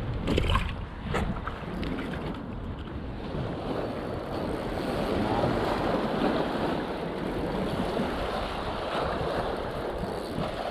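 Small waves washing and splashing against shoreline rocks, swelling through the middle, over a low rumble of wind on the microphone. A couple of footsteps on grass and rock knock in the first second or so.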